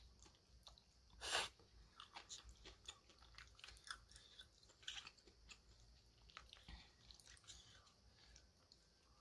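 Faint close-up chewing of a mouthful of noodles, with small wet mouth sounds. A short, louder noise comes about a second in, and light clicks of a plastic spoon stirring in the bowl follow through the middle.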